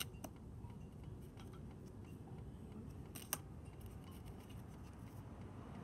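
Tarot cards being handled: a few faint clicks and light taps, with a sharper double click about three seconds in, over a low steady background hum.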